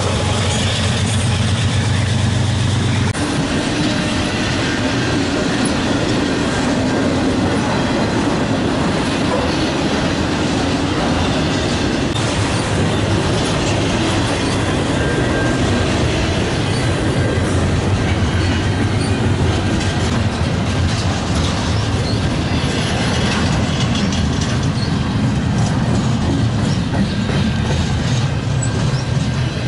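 Intermodal freight train cars rolling past close by: a steady, loud rumble and clatter of wheels over the rails. A low steady hum under it stops suddenly about three seconds in.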